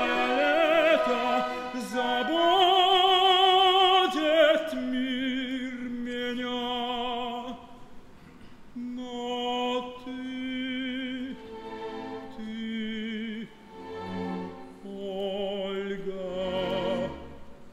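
Male operatic voice singing held, stepping notes with a wide vibrato, over orchestral accompaniment.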